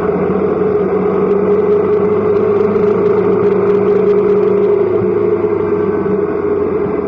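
Motorcycle engine running at a steady pace while the bike is ridden, picked up by a camera mounted on the motorcycle.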